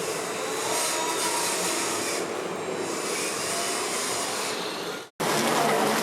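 Steady whirring, hissing machine noise with faint whining tones. It cuts out abruptly a little after five seconds in, and a louder, rougher noise takes over.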